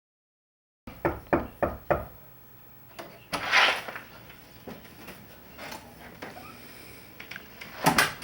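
About five quick knocks on a door in roughly a second, then a brief rustling scrape; two more sharp sounds near the end.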